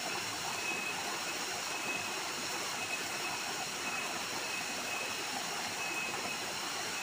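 Small waterfall cascading down a rock face into a pool: a steady rush of falling water.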